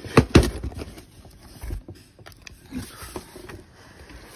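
Handling noise as a cardboard shipping box is moved and opened: two sharp knocks just after the start, a dull bump near the middle, then scattered softer clicks and rustles.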